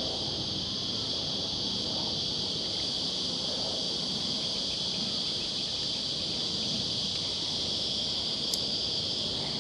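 Steady, high-pitched insect chorus, a continuous even buzz with no break, with a single short click near the end.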